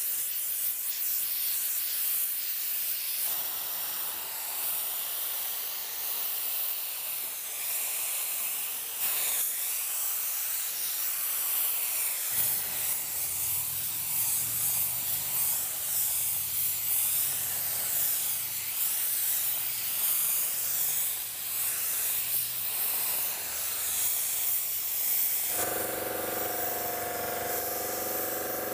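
Air-powered automotive paint spray gun hissing as it sprays basecoat onto a truck bedside panel, a steady high hiss of air and atomised paint.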